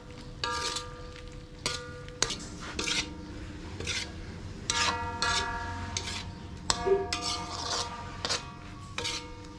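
A metal spoon scraping and clinking against a thin metal wok while stir-frying sliced beef, in irregular strokes about once a second, the wok ringing briefly after each stroke.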